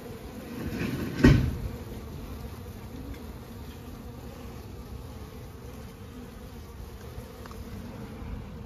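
Honeybees buzzing steadily, with a single sharp knock about a second in.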